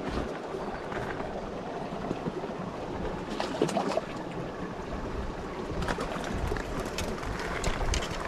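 Creek water running steadily, with a few short sharp sounds about three and a half seconds in and again near the end.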